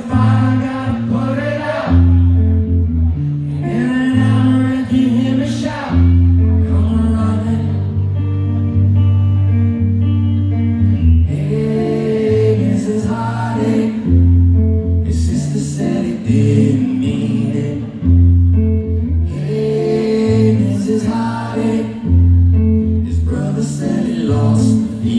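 Live acoustic song: a man sings through a PA in phrases with short pauses between them, over an acoustic guitar playing sustained chords.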